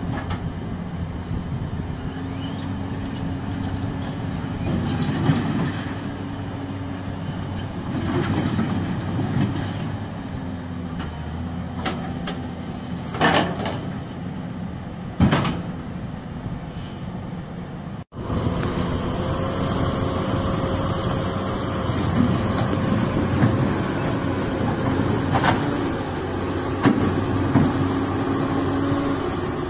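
XCMG XE215BR crawler excavator running, its diesel engine steady under a constant whine, with several sharp metal clanks as the machine works its boom on the trailer.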